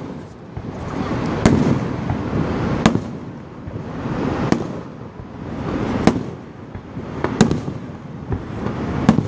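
Aerial firework shells bursting in a display: about six sharp bangs, one every second and a half or so, over a continuous rumble.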